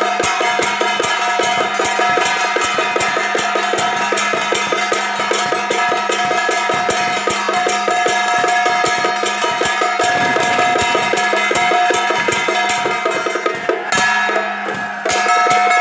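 Fast, steady drum-and-gong beat of a Song Jiang troupe's percussion band, about six strikes a second over steady ringing tones, with a brief break about fourteen seconds in.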